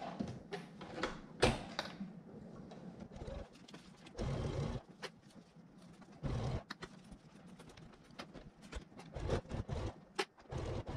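Sewing machine stitching in two short runs of under a second, amid scattered light clicks and handling of the fabric under the presser foot.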